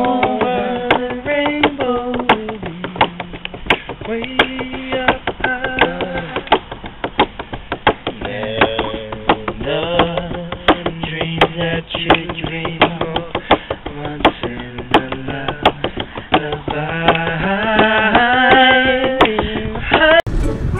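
A man singing a melody with held notes over steady strummed chords on an acoustic guitar. The music cuts off suddenly just before the end.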